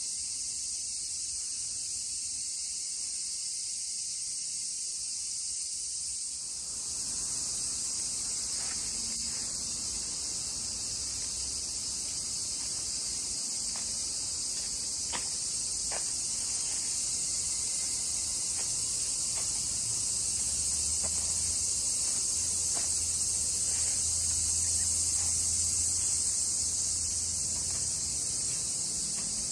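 Steady, high-pitched chorus of insects singing without a break. From about seven seconds in there are soft footsteps on gravel underneath it.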